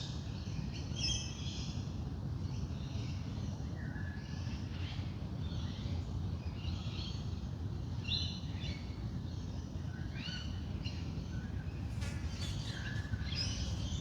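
Dawn chorus of several wild birds, with short chirps and quick rising calls repeating throughout, over a steady low background rumble.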